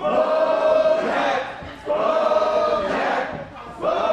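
Wrestling crowd chanting in unison, a drawn-out sung chant that repeats about every two seconds.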